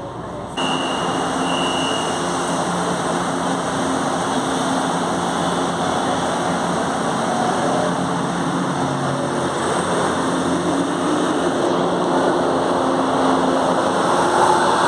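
Fleet G metro train's traction motors growling as the train runs, heard from inside the car: a loud, steady rumble with several held tones. It gets suddenly louder just under a second in, and near the end higher tones begin to sweep in pitch.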